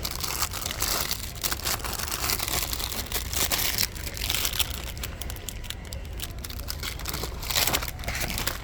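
Plastic packaging crinkling and rustling as it is handled: a dense, irregular crackle that starts and stops abruptly.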